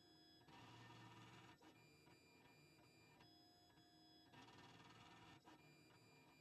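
Faint sound of a Printrbot Metal Simple 3D printer printing, played at double speed: its stepper motors give off steady whining tones that change pitch every second or so as the print head switches moves, with two stretches of noisier hiss.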